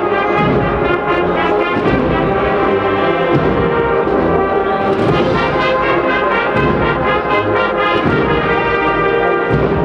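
A Spanish agrupación musical, a Holy Week band of brass and percussion, playing a march, with the brass carrying a loud, steady melody over the drums.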